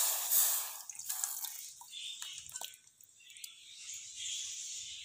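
Soaked tamarind and its soaking water poured from a steel bowl into a metal pot. The liquid stream tails off within the first second, then gives way to drips and soft splats as the last pulp slides out, with a few light clicks.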